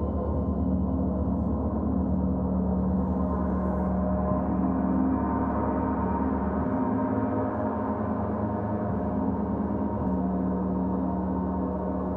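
Large gongs, among them a Paiste gong and a Mars planet gong, ringing on together in a dense wash of many steady overtones, with no new strike. Some of the lowest hum drops away about seven seconds in.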